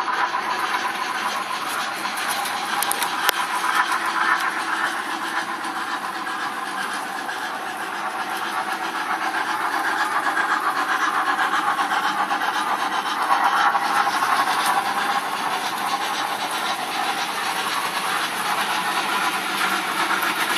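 HO scale model steam locomotives and passenger cars running on the layout: a steady steam-like hiss from the locomotives' sound with running noise on the track and a few faint ticks.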